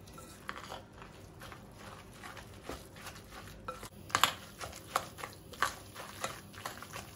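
Fork stirring a wet batter of grated zucchini and carrot with egg and flour in a glass bowl: soft squelching and scraping, with sharper clinks of the fork against the glass, several a second, louder from about four seconds in.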